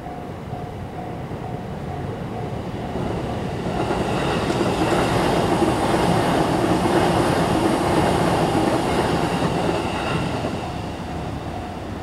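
Japanese level-crossing warning bell ringing at about two strikes a second, while a JR Nanbu Line electric commuter train runs over the crossing: its wheel and running noise swells from about four seconds in, is loudest midway, and dies away around ten seconds, leaving the bell still ringing.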